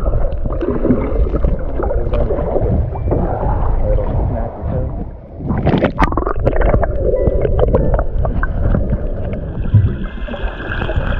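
Underwater sound through a submerged waterproof action camera: a muffled low rumble of moving water with bubbles gurgling and crackling, and a sudden louder rush about six seconds in.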